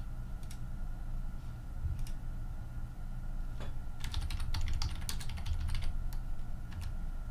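Typing on a computer keyboard: a few scattered key clicks, then a quick flurry of keystrokes about four seconds in.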